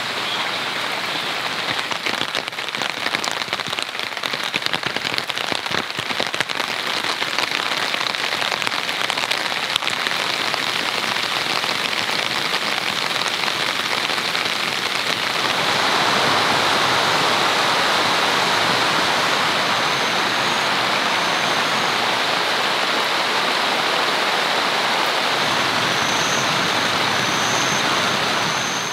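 Heavy rain falling steadily, with separate drops tapping in the first half; about halfway through it turns into a louder, denser, even hiss.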